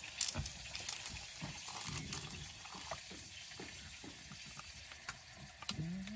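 Food sizzling and crackling in a hot frying pan: a steady hiss with scattered sharp pops.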